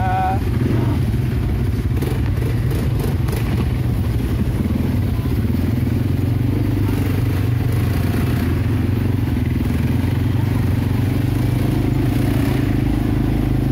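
ATV (quad bike) engine running steadily as the quad is ridden along a bumpy dirt trail, a continuous low drone. A few clattering knocks come about two to three seconds in.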